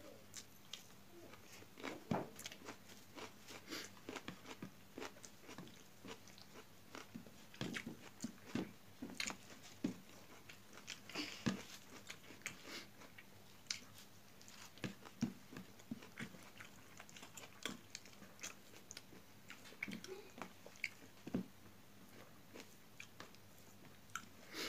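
Close-up eating sounds: a person chewing and crunching raw onion and other raw vegetables with mouthfuls of rice, with irregular wet mouth clicks and crackles a few times a second.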